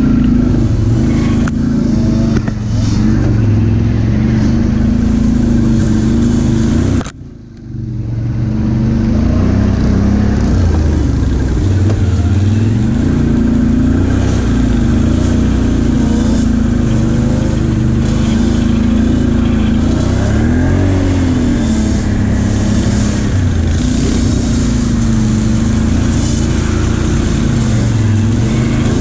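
ATV engine heard from on board while riding a dirt trail, its pitch rising and falling as the throttle opens and closes. The sound drops out briefly about seven seconds in.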